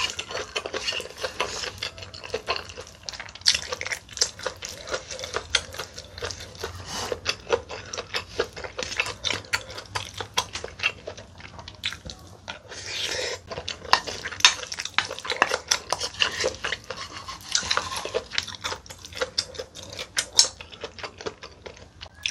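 A wooden spoon and a plastic spoon clicking and scraping against a bowl as spicy octopus rice is stirred and scooped, with bites and chewing in between.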